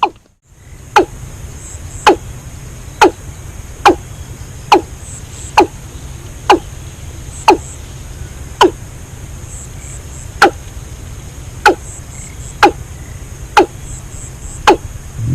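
A run of sharp strikes at an even pace, about one a second, each ringing briefly and falling in pitch, over faint high chirping.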